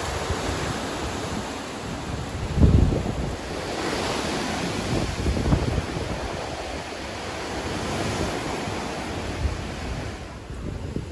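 Tropical-cyclone wind gusting: a loud, steady rush that swells and eases, with low buffeting on the microphone, strongest about two and a half seconds in, then dying down a little near the end.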